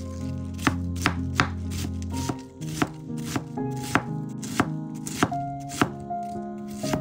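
A kitchen knife chopping on a cutting board, sharp strokes about twice a second at an uneven pace, over background music with held notes.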